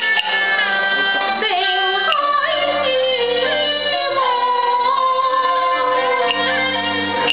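A woman singing a Cantonese opera song (yuequ) in long, ornamented notes that slide between pitches, over instrumental accompaniment with held low notes.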